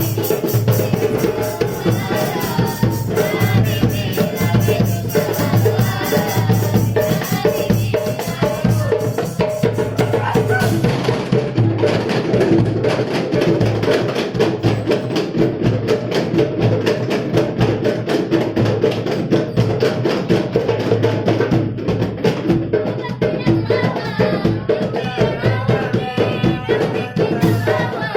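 Marawis ensemble of hand drums playing a fast, dense, steady rhythm. A wavering sung line rides over it in parts.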